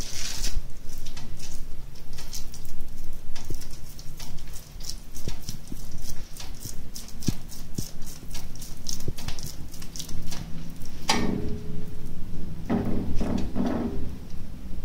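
Wet minced meat and rice being shaped by hand into meatballs: quick soft pats and squelches as the mixture is patted between the palms. It gets louder and denser for a few seconds near the end.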